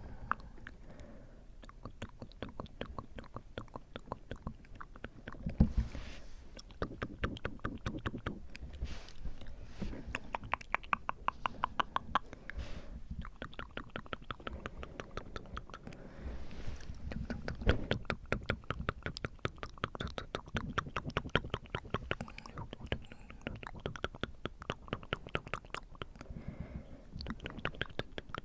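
Close-miked wet mouth sounds: quick runs of tongue and lip clicks, several a second. There are a few heavier breathy puffs into the microphone, one about six seconds in and another past the middle.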